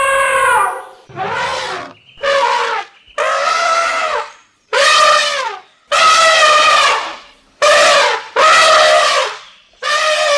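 Elephants trumpeting: a run of about eight loud, brassy blasts in quick succession, each a second or so long and dropping in pitch as it ends.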